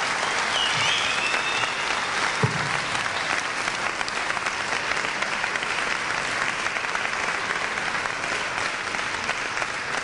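Large crowd applauding steadily. A brief high gliding tone rises over the clapping about a second in, and there is a single thump about two and a half seconds in.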